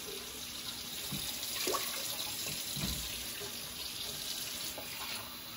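Kitchen tap running steadily, a continuous rushing hiss of water, with a few faint knocks partway through.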